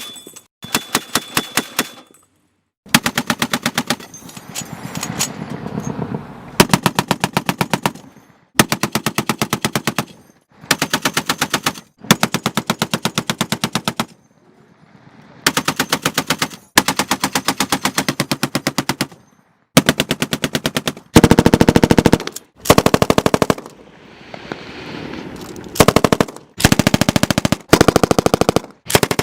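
Machine-gun fire: repeated bursts of rapid automatic shots, each a second or two long, with short pauses between bursts.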